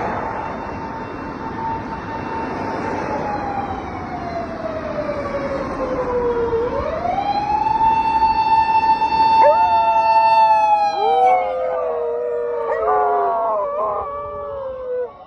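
A police car siren wails, its pitch falling slowly for several seconds, then rising sharply and holding before it falls again. Partway through, two dogs start howling at it, their wavering howls overlapping each other and the siren until the end.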